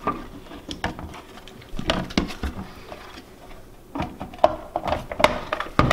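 Hard plastic clicks and knocks from the white plastic shell of a DJI Phantom 3 Standard remote controller being handled and fitted back together, with irregular taps and rubbing and a sharper knock near the end.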